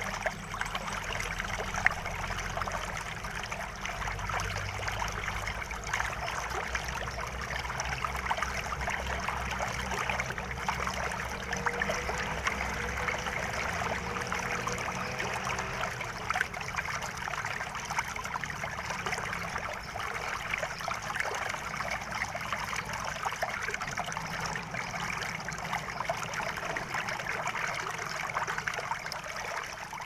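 Shallow stream running and splashing over rocks: a steady rush of water with fine bubbling crackle.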